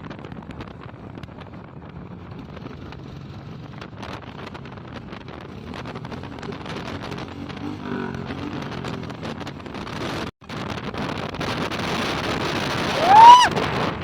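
Wind buffeting the microphone on a moving motorcycle, with faint engine and road noise beneath. About a second before the end comes a short, loud pitched tone that rises and then falls.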